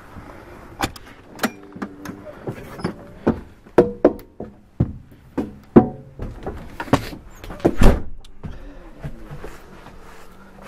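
A run of sharp knocks, clicks and thunks as the motorhome's entry door is unlatched and opened and someone climbs the entry steps into the coach. The loudest thump comes about eight seconds in.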